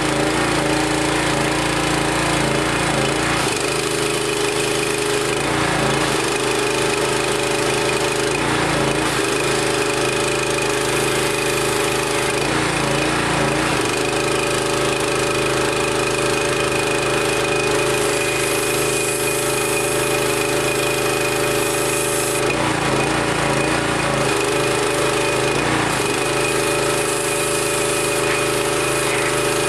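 Harbor Freight Predator 212 cc single-cylinder four-stroke engine running a pressure washer pump, steady and loud, with a thin high tone above it. The engine note shifts briefly every few seconds.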